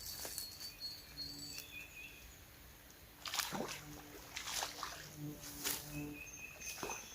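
Faint outdoor riverside ambience with short, high-pitched bird calls and a few brief bursts of noise in the second half.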